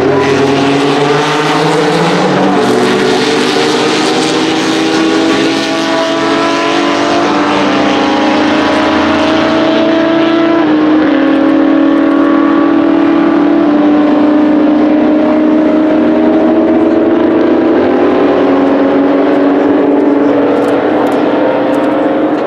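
Racing car engines running hard at high revs, their pitch climbing slowly over several seconds. The pitch drops about ten seconds in, then climbs again.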